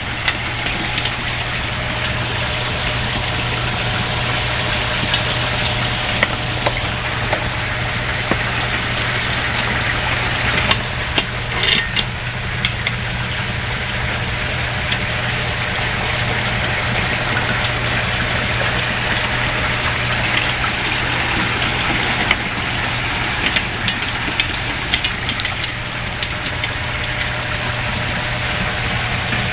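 Steady rush of bubbling, churning water in a tub of aerated water, over a constant low hum, with a few small splashes and clicks.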